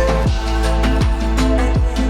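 Background music with a steady beat, bass and pitched instrument notes.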